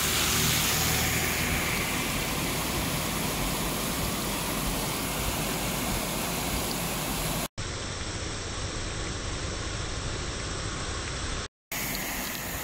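Muddy floodwater cascading over a rocky bank in a steady rush. A vehicle passes close by through the water in the first couple of seconds. The sound drops out for an instant twice.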